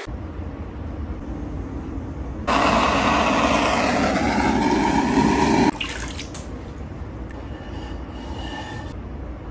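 Electric pottery wheel running with a steady low hum. About two and a half seconds in, a hand-held propane torch roars for about three seconds and then cuts off; it is drying and firming the freshly thrown clay wall.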